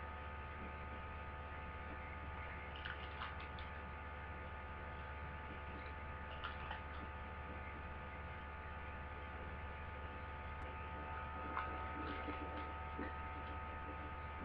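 Steady electrical hum with a thin high whine, the self-noise of a low-quality webcam microphone, with a few faint soft clicks.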